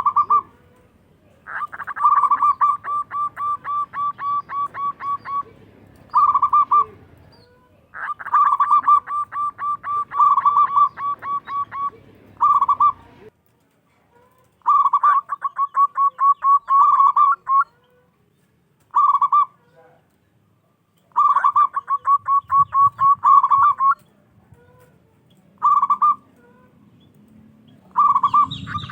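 Zebra dove cooing: four long phrases of rapid staccato coos, about four notes a second, each lasting a few seconds, with a single short coo between phrases.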